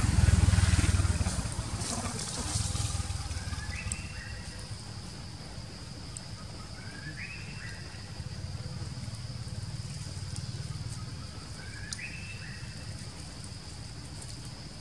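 Outdoor roadside-woodland ambience: a steady high insect drone throughout, with a bird giving a short rising call three times, a few seconds apart. A low rumble is loudest in the first few seconds and then fades.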